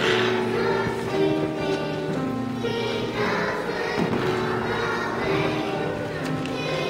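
A group of kindergarten children singing a Christmas song together, with music playing along, the melody moving in steady held notes.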